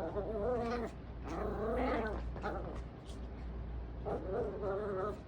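Yorkie puppy whining in long, wavering cries, three of them.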